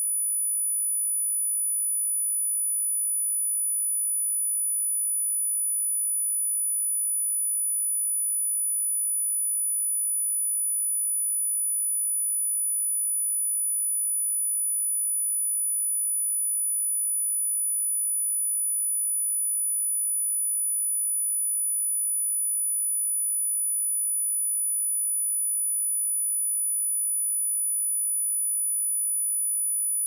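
A pure electronic sine-wave test tone at 9952 Hz, one steady high-pitched whistle holding constant pitch and level, used for testing speakers or shaking water and dust out of them.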